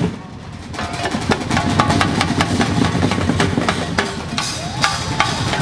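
Drums and percussion playing a fast, steady dance rhythm with some short pitched notes over it. It is softer for the first second, then builds back up.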